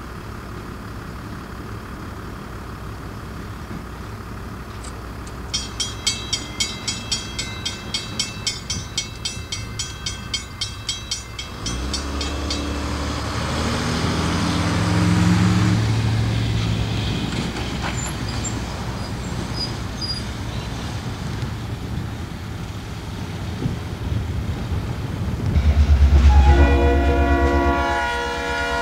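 Railroad grade-crossing warning bell ringing in quick, even strikes for about six seconds, then road traffic rumbling over the crossing. Near the end a diesel locomotive sounds its horn in one loud blast of about three seconds as a freight train passes.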